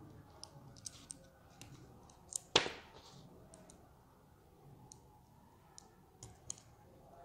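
Small metal clicks of a hex nut, washer and bolt handled in the fingers as the nut is threaded onto the bolt by hand, with one sharper click about two and a half seconds in.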